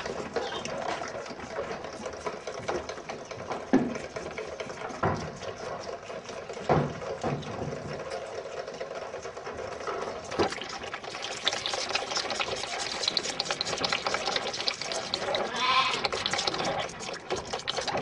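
Several lambs sucking milk from the teats of plastic multi-teat feeder buckets: continuous slurping and sucking, with a few knocks against the feeder and a bleat near the end.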